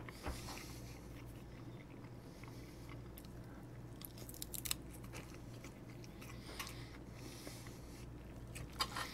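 Faint close-up chewing and mouth sounds of a person eating a soft egg and noodle omelet, with a few light clicks scattered through, over a low steady room hum.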